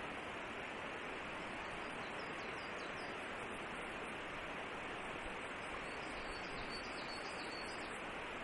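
Steady rushing outdoor background noise of a forest. A small bird's faint short chirps come through in a brief series about two seconds in and again near the end.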